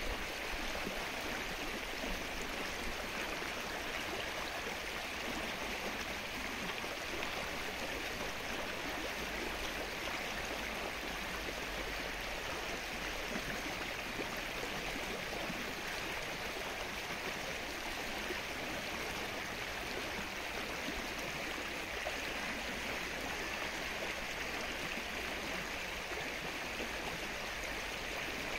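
Steady rain falling on the still water of a lake: an even hiss of many small drops hitting the surface.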